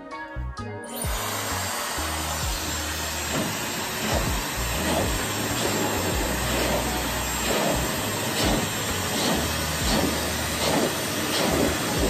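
Handheld hair dryer switched on about a second in, then blowing steadily with a loud rushing hiss that swells and dips repeatedly as it is moved over hair being brushed.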